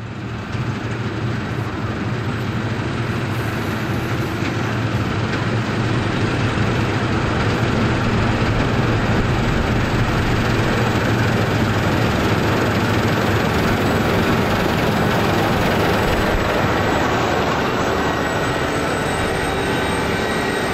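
Claas Lexion 780 combine harvester running while harvesting standing wheat: a steady heavy engine and machinery drone. It grows louder over the first several seconds as the combine approaches, then holds steady as it passes close by.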